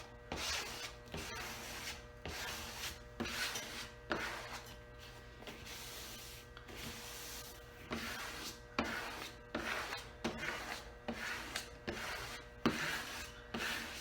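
Squeegee rubbed in repeated strokes, about one or two a second, over wet paper transfer tape on a vinyl decal, pushing the soapy water out from behind the vinyl.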